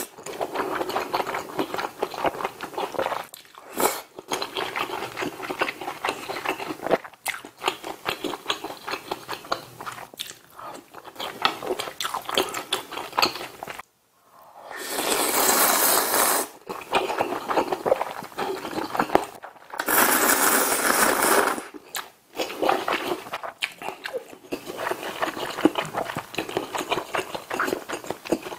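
A person eating ramen noodles from budae-jjigae, close-miked: wet chewing and smacking, broken by two long, loud slurps of noodles about halfway through.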